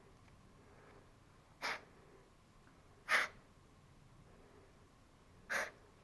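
A person's short, sharp breaths, three of them, the first about a second and a half in and the last near the end, over a quiet background.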